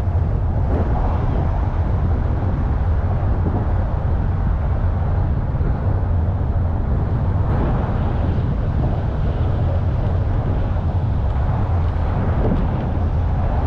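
Steady low rumbling noise with no clear events in it.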